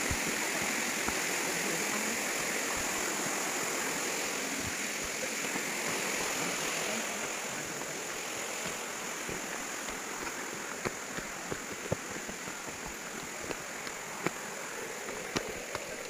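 Steady tropical forest ambience: a high, even insect drone over a broad hiss, easing slightly about halfway, with a few faint footsteps on the dirt trail.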